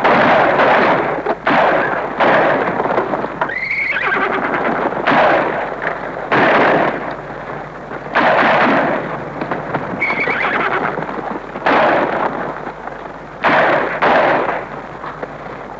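Western film soundtrack gunfight: gunshots from rifles and revolvers, fired about every second or two, each trailing into a long echo. Horses whinny in between, twice. The sound is old film audio played from a Super 8 projector.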